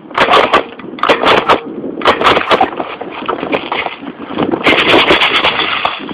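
Conifer twigs and needles brushing and scraping against a gun-mounted phone camera as it is pushed through dense undergrowth, with crackling handling noise on the microphone. It comes in repeated bursts, the longest about three-quarters of the way through.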